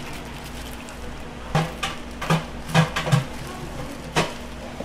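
Half a dozen sharp clacks and knocks of kitchenware being handled, spread over a couple of seconds, over a steady low hum.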